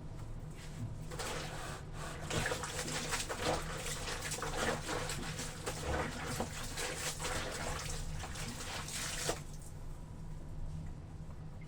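Wet laundry being trodden underfoot in a tub of water: a steady run of sloshing and squelching that stops about nine seconds in.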